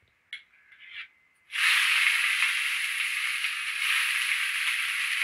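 Chopped bitter gourd tipped into hot oil in a kadai, setting off a loud, steady sizzle that starts suddenly about a second and a half in. Before that, only a few faint crackles from the oil.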